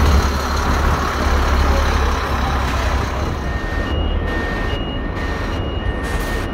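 Diesel bus engine running with a steady low rumble; about halfway through, a reversing alarm starts beeping in a two-note pattern that repeats a little more than once a second.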